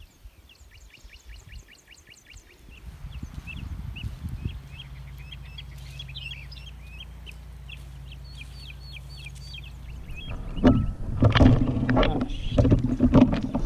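Small birds chirping in quick repeated notes, with a steady low hum coming in about three seconds in. From about ten seconds on, loud irregular knocks and rubbing drown them out: handling noise from a camera mounted on a fishing rod above its spincast reel.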